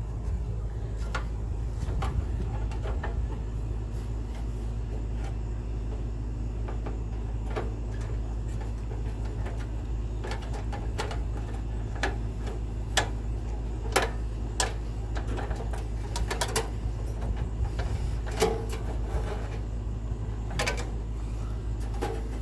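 Scattered light clicks and taps of a socket and screw knocking against metal as they are worked down into a hole, more frequent in the second half, over a steady low hum.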